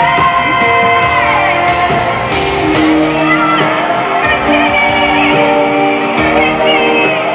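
Live pop ballad in a large arena: a woman singing long held notes with band accompaniment, the sound echoing through the hall.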